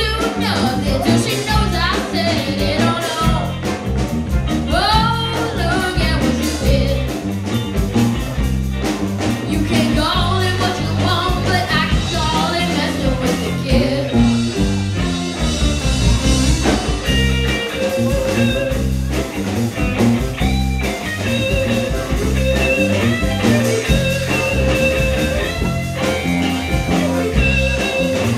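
Live blues-rock band playing, with electric guitars, drums and keyboard.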